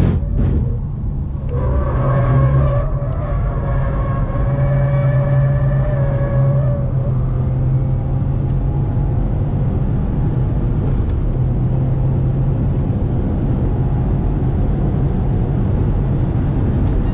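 Cabin sound of a 2018 Subaru WRX STI Type RA at full throttle on a race track: its turbocharged flat-four engine pulling hard as the car accelerates to high speed, with road and wind noise. A brief dip in engine sound about a second in.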